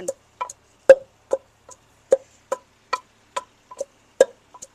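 Wooden pestle pounding spices in a wooden mortar: a steady run of short knocks, about two and a half a second.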